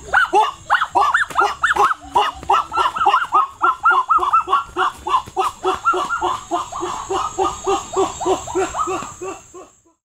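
A dog yapping rapidly and without pause, about three to four short barks a second, fading out near the end.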